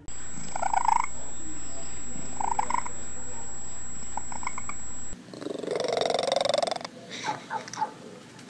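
Domestic cats making odd short calls: a few brief chirp-like calls over a steady low hum, then, after a cut, a longer call and a quick run of short chirps.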